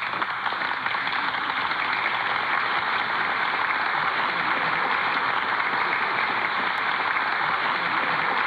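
A large audience applauding steadily after a speech, heard in an old archival recording with little treble.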